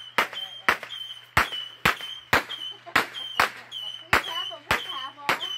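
Multi-shot consumer fireworks cake firing a rapid run of sharp reports, about two a second, each followed by a brief high tone.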